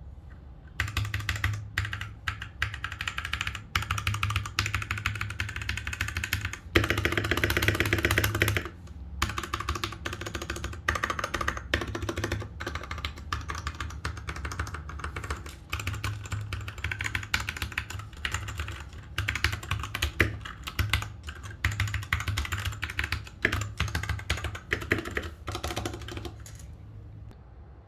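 Royal Kludge mechanical keyboard being typed on: rapid, continuous key clicks and clacks, with a louder, faster flurry of keystrokes at about seven to eight and a half seconds in. The typing stops shortly before the end.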